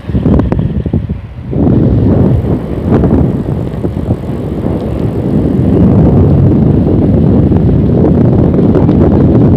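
Wind buffeting the microphone of a camera on a moving bicycle: a loud low rumble that starts abruptly, dips for a moment, then holds steady from about two seconds in. A few sharp knocks from the bike come through in the first three seconds.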